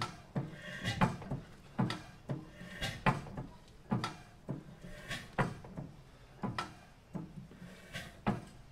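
1910 International Harvester Famous 8 hp single-cylinder engine turning on its flywheels, giving a sharp mechanical clack about twice a second in a slightly uneven beat.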